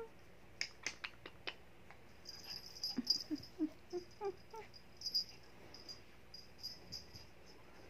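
Small long-haired dog snuffling close to the microphone, with a quick run of short, soft whines about three seconds in. A few light clicks come in the first second and a half.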